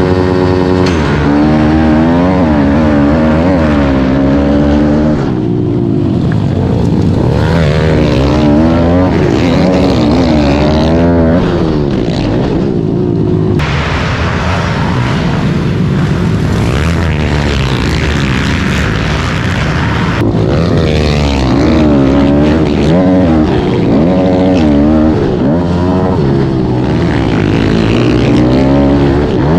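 Pit bike engines revving up and down in repeated waves as the bikes are throttled on and off, with more than one bike at times.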